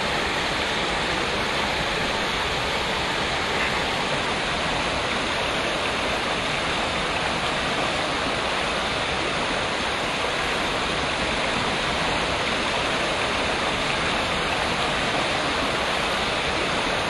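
Steady rushing of a shallow mountain stream flowing over stones, an even hiss of water with no change in level.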